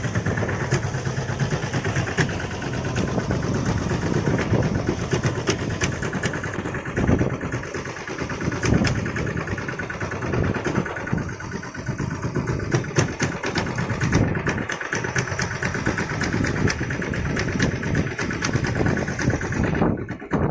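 A fishing boat's engine running steadily, with many short knocks and clatters over it.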